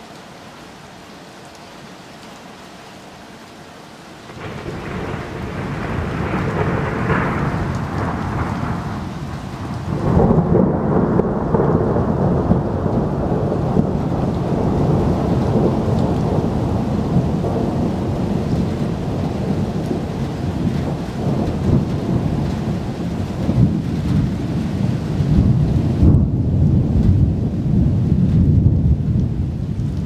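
Rain falling steadily, then thunder: a rumble begins about four seconds in, breaks out louder near ten seconds in, and rolls on as a long, deep rumble over the rain.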